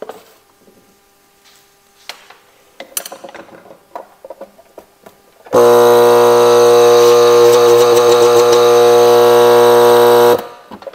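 Freshly rebuilt HiBlow HB-60/80 linear diaphragm air pump (septic tank aerator) running with its cover off: a loud, steady hum with many even overtones that starts about five and a half seconds in and cuts off suddenly after about five seconds. The pump is running properly after the rebuild. Faint handling clicks come before it.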